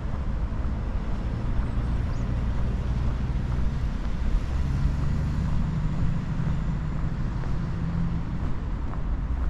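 Steady low rumble of road traffic, with a vehicle engine's hum standing out in the middle.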